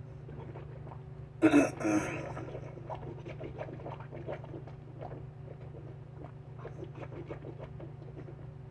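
Wet clicking and squishing of coconut oil being swished around the mouth in oil pulling, after a brief loud noise about a second and a half in.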